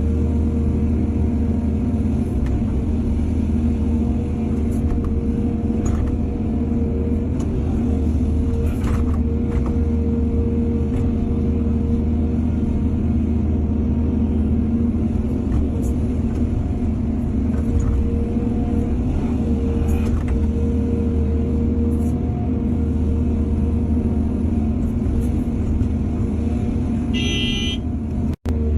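Heavy diesel engine of an excavator running steadily under load. Near the end there is a brief high-pitched tone, then the sound cuts out for an instant.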